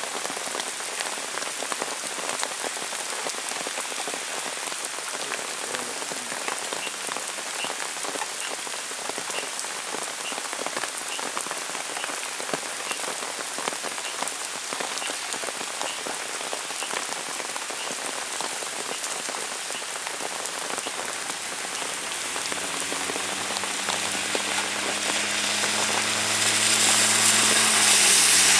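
Heavy rain pattering steadily on a surface. In the last few seconds a vehicle engine comes in and grows louder, along with a swelling hiss from tyres on the wet road.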